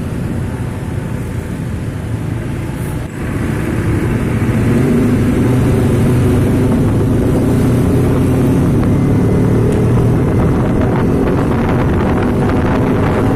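A coach bus's diesel engine running through its modified 'jet darat' exhaust, a steady deep drone. Wind buffets the microphone for the first three seconds; after that the engine is closer and louder.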